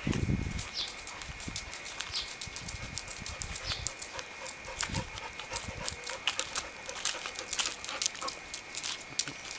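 Cats giving short, high calls among many small clicks and knocks, over a steady high tone; a low thump right at the start.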